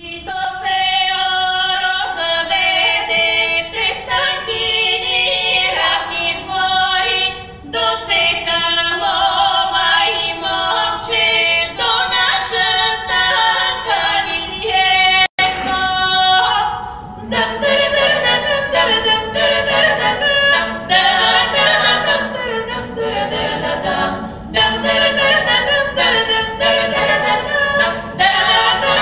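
A small a cappella vocal ensemble singing Bulgarian folk polyphony in close harmony, with women's voices leading. The sound breaks off for an instant about halfway through, and the texture grows fuller and lower from a little past halfway as more voices join.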